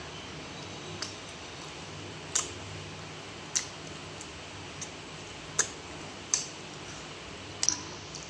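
Eating sounds: about seven sharp mouth clicks and smacks, a second or so apart, over a low steady hum.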